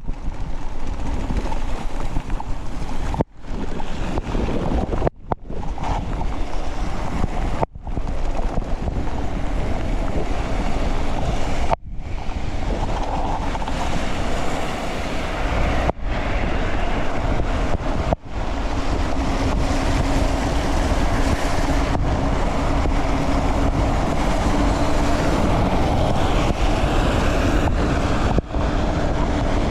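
Wind rushing over an action camera's microphone, with tyre noise, on a fast mountain-bike descent in heavy rain. The sound cuts out briefly several times, and a steady low hum joins in during the second half.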